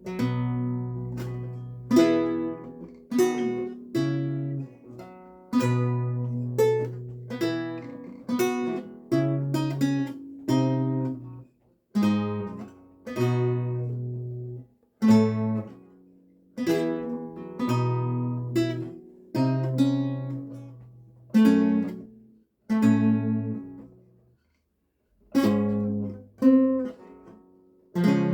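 Renaissance lute played solo: plucked chords and short melodic runs, each note ringing and dying away. There are a few short pauses, the longest about two seconds near the end.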